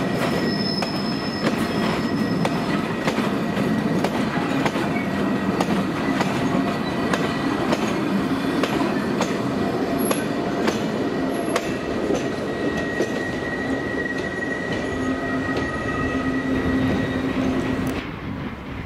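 Freight wagons of an engineering train rolling past, wheels clicking over rail joints, with a thin high wheel squeal that grows stronger in the second half. The sound cuts off suddenly near the end into quieter train noise.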